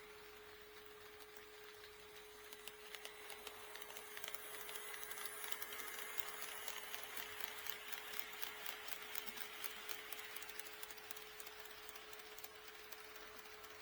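HO scale model train rolling past on sectional track, its wheels clicking rapidly over the rail joints. The clicking swells as it approaches, is loudest in the middle and fades as it moves away. A steady tone continues underneath.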